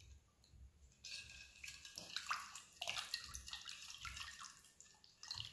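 A wooden spoon stirring a thin liquid of water, sugar and yeast in a glass bowl: faint, irregular sloshing and swishing that starts about a second in, with a few light taps.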